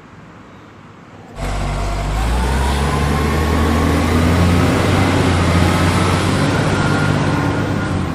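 A large truck's engine running and revving. It cuts in suddenly about a second and a half in, rises in pitch, then holds a steady, loud run.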